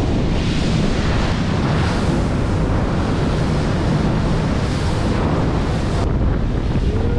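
Wind buffeting the microphone, mixed with the rush of water along the hull of a power boat running at speed across flat sea: a loud, steady roar.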